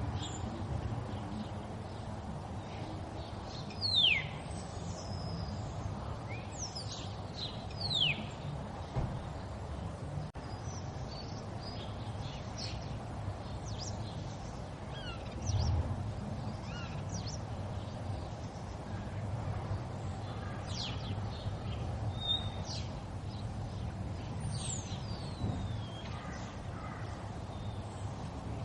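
River water flowing steadily, with birds calling over it: two sharp falling calls about four and eight seconds in stand out loudest, among scattered higher chirps and another falling call near the end. A low thump about halfway through.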